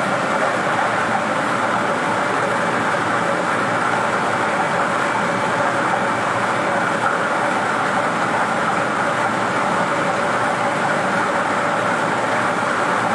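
Air-mix lottery ball machine running: its blower makes a steady rushing noise as it blows the numbered balls around inside the clear chamber to mix them for the draw.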